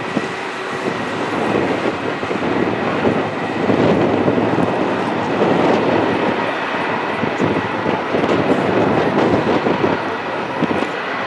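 Boeing 737-800's CFM56 jet engines running as the airliner lines up on the runway for takeoff: a loud, rough rumble that grows over the first few seconds and then holds, with a faint steady whine above it.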